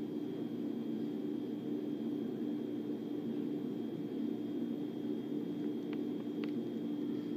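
Steady low hum with a hiss and a faint high whine, with two faint clicks near the end.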